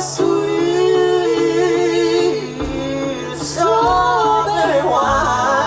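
Live country band, with a male singer holding long, sliding notes over bass and drums, a drum hit falling every second or so in the second half.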